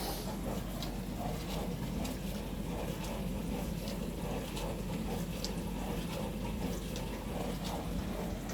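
Dishwasher running its wash cycle, water spraying and sloshing inside the machine.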